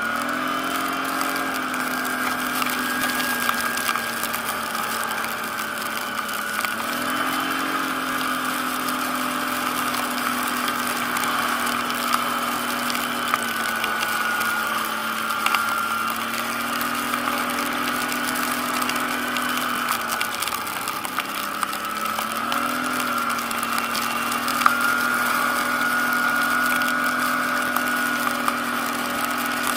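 ATV engine running under way through snow. Its pitch climbs and settles several times as the throttle is worked, with a steady higher whine above it.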